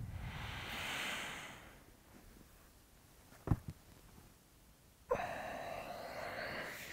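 A man sighing as he wakes: a long breathy exhale, a short double click about three and a half seconds in, then a longer voiced sigh.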